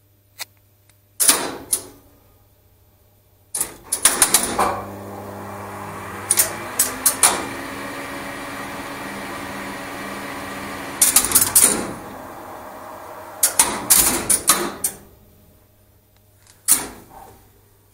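Relays and contactors in a 1970s Express Lifts controller clicking in quick clusters as the lift starts, passes floors and stops. Between the clusters the lift machinery runs with a steady hum, starting about three and a half seconds in and stopping after about twelve seconds.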